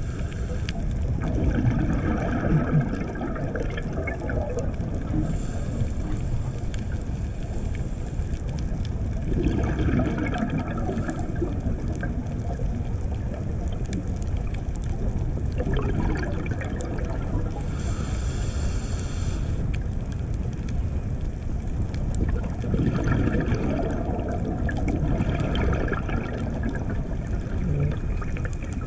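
Underwater sound of a scuba diver breathing through a regulator: a steady low rumble with bursts of exhaled bubbles gurgling every several seconds, and a higher hiss twice in between.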